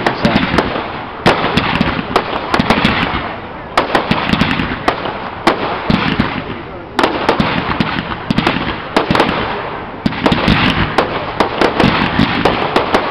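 Fireworks going off in rapid volleys: many sharp bangs and pops over a steady crackling hiss, swelling in waves every few seconds.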